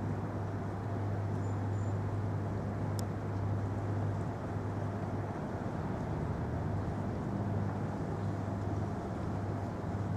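Steady low rumble of city traffic, with a constant hum underneath. A single faint click about three seconds in.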